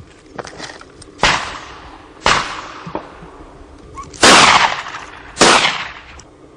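Four shotgun shots at doves, in two pairs about a second apart, the last two the loudest, each trailing off in an echo. Fainter, more distant shots sound between them.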